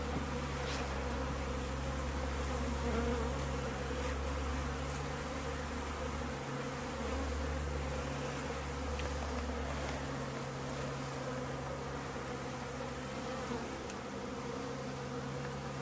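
Honeybees buzzing steadily around a newly stocked top bar hive, many bees on the wing making a continuous hum.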